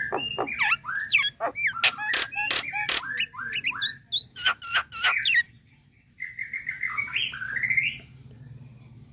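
Common myna calling: a rapid run of sharp clicks mixed with short whistled, sliding notes for about five seconds, then, after a brief pause, a rougher wavering phrase.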